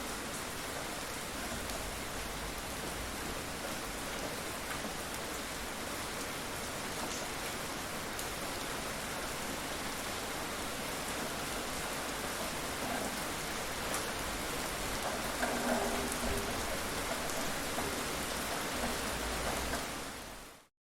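Steady rain falling and pattering on surfaces, an even hiss with scattered drop sounds, which fades out quickly near the end.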